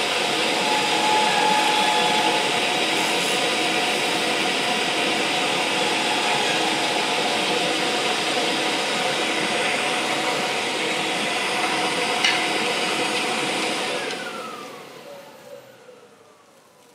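Record Power Camvac dust extractor running loud and steady while a roughing gouge skims the acrylic pen blank spinning on the lathe. About three-quarters of the way in the noise dies away over a few seconds with a falling whine as the machines wind down.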